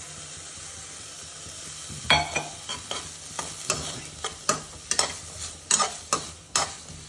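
Sweet corn and chopped vegetables sizzling in butter in a kadai. From about two seconds in, a steel spoon stirs them, its strokes clacking and scraping against the pan about two or three times a second.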